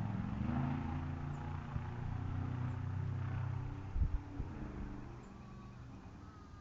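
An engine running, its pitch rising at the start and then holding steady before it fades about five seconds in, with two sharp knocks about four seconds in. Faint short chirps near the end.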